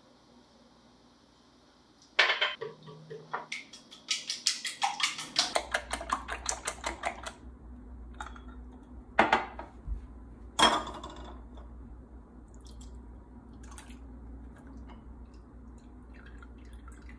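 Whisk beating eggs in a glass measuring jug: a sharp knock, then a fast run of clicks against the glass, then two louder single taps.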